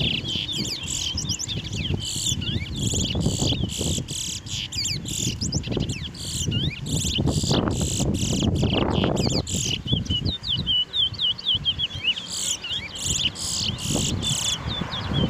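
Towa-towa seed finches singing: quick runs of short chirping notes, over a low rumble of background noise.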